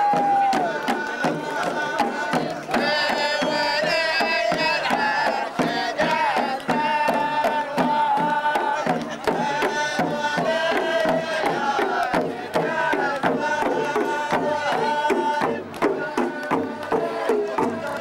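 Men chanting in unison over steadily beating drums, the music of a Gulf sword dance.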